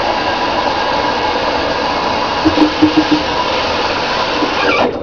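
Water running from a bathtub faucet, a steady rush that is shut off just before the end.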